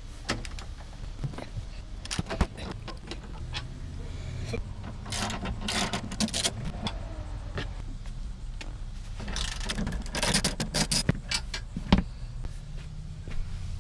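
Hand ratchet with a Torx socket clicking in two quick runs as the seat bolts are backed out, with light metal clinks and a single sharp knock near the end.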